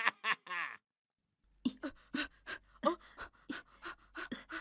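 Quick, even panting, several breaths a second, from a voice actor out of breath; it starts about a second and a half in, after a short bit of speech.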